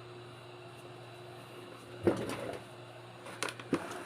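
Small clicks and knocks of tools being handled on a repair bench: one scraping clatter about two seconds in and two sharp clicks near the end, over a steady low hum.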